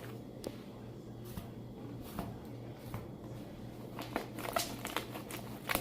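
Slime being handled and squeezed: scattered soft sticky clicks and squishes, busier near the end.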